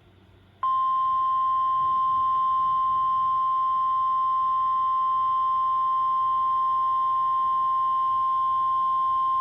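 NOAA Weather Radio 1050 Hz warning alarm tone: a single steady high beep that starts about half a second in and holds without a break. It signals that a severe weather warning message follows.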